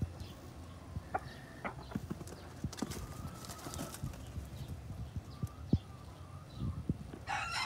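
Scattered light clicking footsteps and scuffs on gritty concrete as a gamecock struts about. Near the end a rooster starts to crow.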